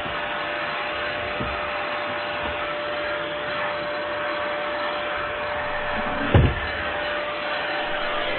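Vacuum cleaner running steadily: a constant rushing noise with a steady whine, and a single dull thump about six seconds in.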